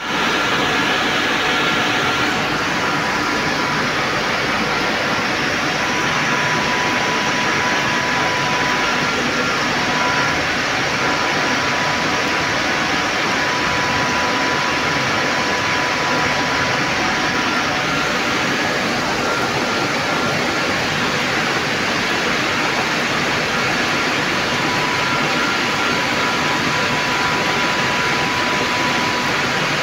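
Reverse-osmosis water plant machinery running at full flow: a steady rushing hiss with faint high whining tones, even in level throughout and without distinct pulses.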